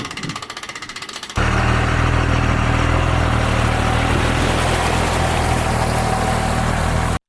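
A motor engine running steadily and loudly. It comes in abruptly about a second and a half in and cuts off sharply just before the end. Before it there is a fainter, rapid even buzz.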